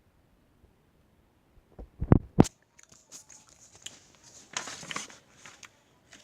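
Bite into a crisp meringue cookie: two sharp crunches about two seconds in, then crackling chewing.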